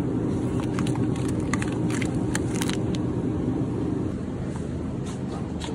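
Steady low rumble of a moving car, with a scatter of light clicks and taps between about one and three seconds in.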